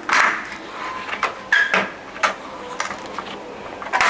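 A handful of irregular sharp metallic clicks and knocks, a few with a short ring, as an aluminum sliding-door panel frame and its replacement roller are handled and fitted.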